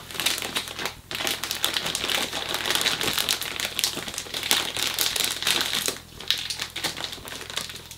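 Clear plastic bag holding sterilized grain crinkling as gloved hands gather and twist its neck shut, a dense crackle with short lulls.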